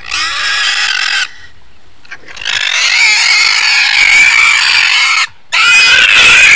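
A pig squealing loudly in long, high-pitched screams: one for about a second, then after a short pause two longer ones broken by a brief gap, the squeals of a pig being held and tied up on a tight rope.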